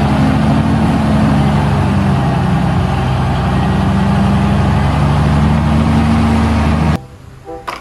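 Engine of a military 6x6 dump truck running steadily as it drives with its bed raised, spreading its load, with a rushing noise over the engine. The sound cuts off abruptly near the end.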